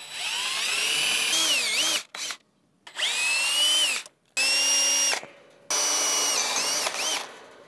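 DeWalt cordless drill running in four bursts of motor whine, driving screws into the steel bracket on the wooden gate post and drilling into the gate's steel rail. The pitch rises as the trigger is squeezed and dips as the motor loads, and each burst cuts off abruptly.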